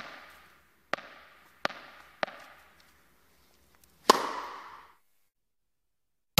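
Tennis sound effect: a ball struck back and forth, four sharp pocks less than a second apart, then a louder hit about four seconds in that rings on for nearly a second.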